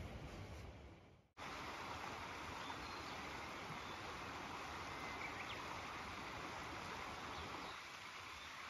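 Faint outdoor background noise. A low rumbling hiss cuts off abruptly a little over a second in and gives way to an even, steady rushing hiss, with a few faint high chirps.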